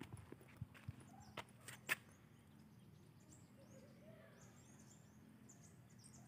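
Quiet outdoor ambience: a few footsteps in the first two seconds, then faint, high bird chirps.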